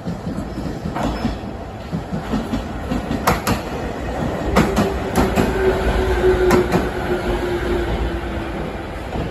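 An electric commuter train running past along the platform: its wheels clack over rail joints in close pairs. From about halfway, a steady tone sinks slightly in pitch for about four seconds as the cars go by.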